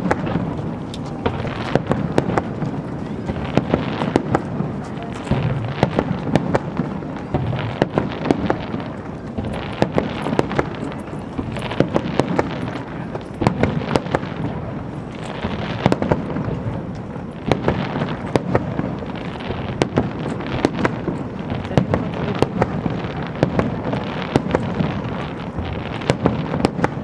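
Fireworks display: shells bursting one after another with many sharp bangs and crackles, never pausing.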